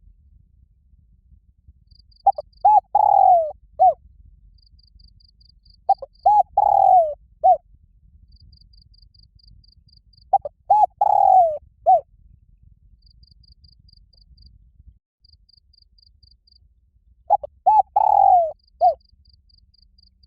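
Spotted dove giving its loud challenge coo four times. Each phrase is two short coos, a longer falling coo and a last short coo. A cricket chirps faintly in short trains between the phrases.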